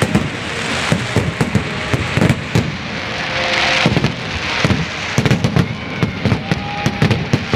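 Fireworks going off in rapid succession: many sharp bangs and crackles, several a second, over a steady hissing rush that swells about halfway through.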